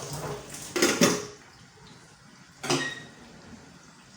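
Kitchen pots and dishes clattering: a loud clank about a second in and another a little before three seconds, the second leaving a short ring.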